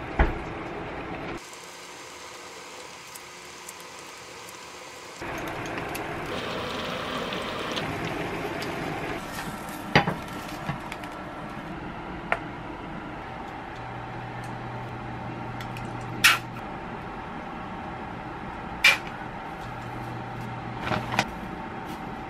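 Kitchen sounds across several short cuts: a spoon working in a pot of stew, then a few sharp clinks of utensils against dishes over a steady low hum.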